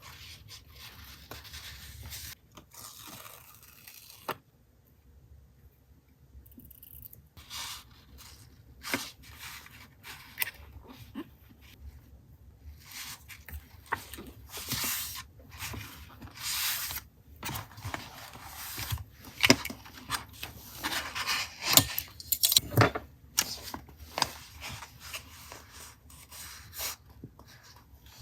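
Paper and stickers being handled for collage journaling: intermittent scraping, rubbing and tearing of paper with sharp ticks and taps. There is a brief lull about four seconds in, and it gets busier and louder in the second half.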